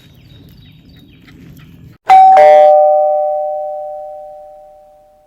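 Two-note ding-dong chime, a higher note then a lower one about a quarter second later, both ringing out and fading over about three seconds. Before it, faint outdoor background noise cuts off abruptly.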